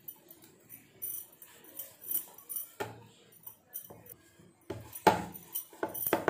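A wooden rolling pin rolling out chapathi dough on a round rolling board, with knocks of the pin on the board and the clinking of bangles on the rolling wrist. The clicks come thicker and louder from about halfway in.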